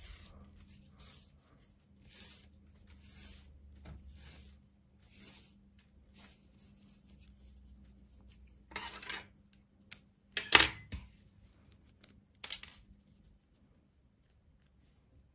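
Paper yarn rustling and crinkling as it is worked with a crochet hook, with soft irregular rustles and then three sharper crinkles in the second half, the loudest about two-thirds of the way through.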